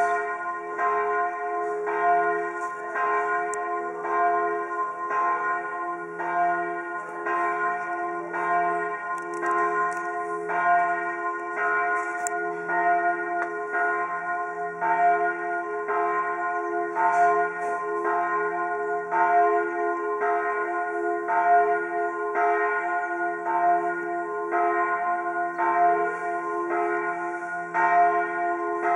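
Church bells of the French Church (Französische Kirche) in Bern ringing a peal: several bells strike over and over, their tones overlapping and ringing on without a break.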